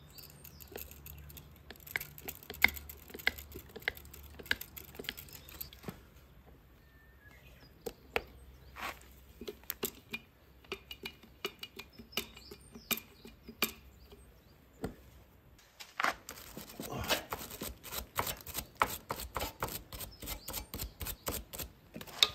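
Hand grease gun being worked on a wing mower's grease fittings: scattered metallic clicks and clacks of the gun and its coupler, with a faster run of clicks over the last several seconds.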